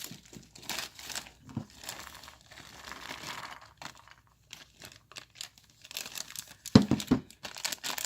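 A plastic packet crinkling and rustling as hard plastic toy beans are poured out of it, with scattered small clicks and a louder cluster of knocks about seven seconds in.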